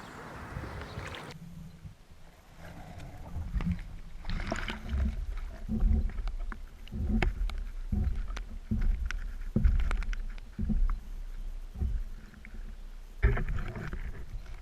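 Magnet-fishing rig carrying a GoPro in its waterproof housing, knocking and bumping as it is moved through the water. Muffled, irregular low thuds come roughly once a second after the sound changes abruptly about a second in.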